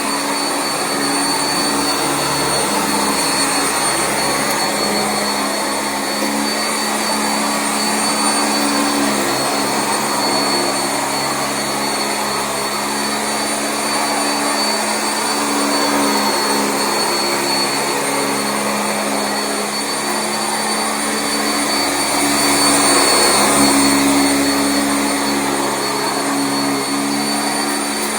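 Sanitaire SC679J commercial upright vacuum running steadily over carpet, its motor with a steady high whine.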